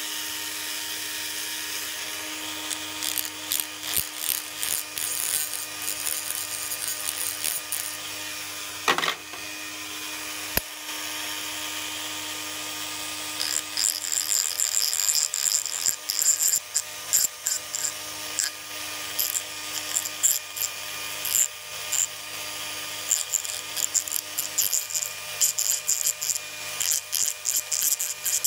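Dremel-type rotary tool running steadily with a small abrasive grinding stone, sharpening the edge of a steel knife blade. The motor hums evenly, with a brief sweep in pitch about nine seconds in; from about halfway on, the stone grinds against the steel in quick repeated rasping strokes that throw sparks.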